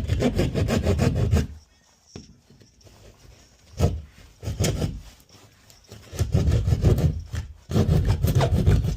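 Loud, rasping scraping and rubbing in bursts: about a second and a half at the start, short bursts near four and five seconds in, then a longer stretch of nearly three seconds near the end, with quiet gaps between.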